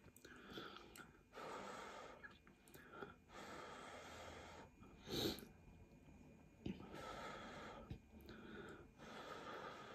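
Faint, soft puffs of breath from a person eating noodles, each about a second long with short gaps between them, and one brief louder puff a little past halfway.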